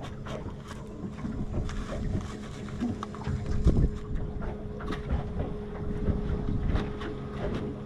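Chunks of barramundi being pressed and turned in panko breadcrumbs: scattered light knocks and rustles, over a steady low hum and wind on the microphone.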